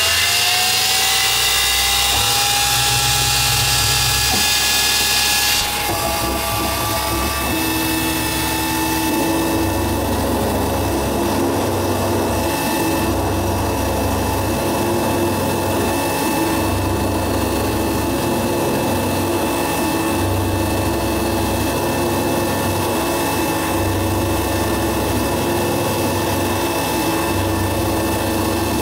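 Small CNC mill's spindle running a 1/8-inch ball-nose end mill as it cuts a slot in a metal plate: a steady machine whine. A hiss with it cuts off abruptly about six seconds in, and after that a low hum rises and falls every few seconds as the cut goes on.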